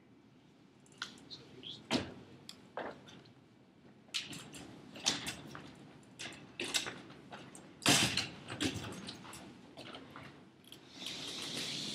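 Metal-framed chairs being carried and set down on a hard floor: a string of knocks, clatters and scrapes, the loudest about eight seconds in.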